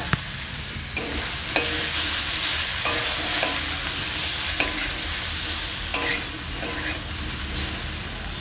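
Fried cauliflower florets sizzling in oil and spice paste in a metal kadai while a metal spatula stirs them, knocking and scraping against the pan about once a second over a steady sizzle.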